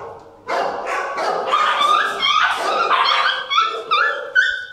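Puppies yipping and whining, a quick string of short high cries that rise in pitch, several each second.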